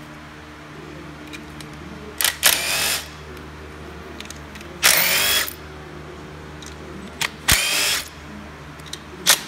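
Cordless power driver on a long extension spinning out valve-cover bolts: four short runs of under a second each, the motor's whine rising as it spins up.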